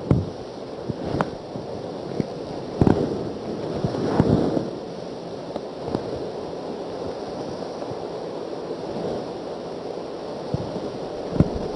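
A steady hiss of room noise, with a few short knocks and scrapes as a marker draws lines on a whiteboard.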